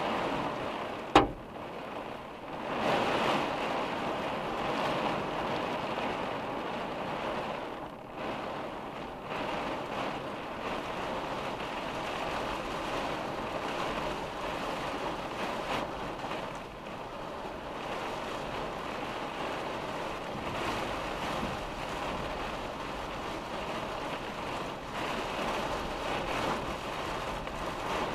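Hard rain and storm wind beating on a vehicle's windshield and roof, heard from inside the cabin as a steady rushing noise that swells for a moment about three seconds in. About a second in there is one sharp, loud knock.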